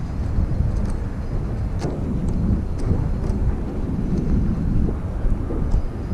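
Wind buffeting the camera microphone: a steady low rumble with a few faint ticks.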